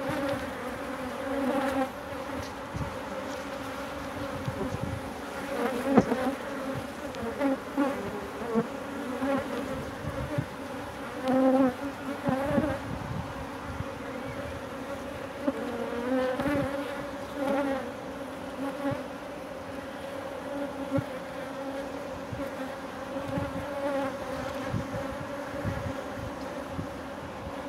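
Honey bees on an open brood frame, a mass of workers humming steadily at a low pitch, the buzz swelling now and then. A single knock about six seconds in.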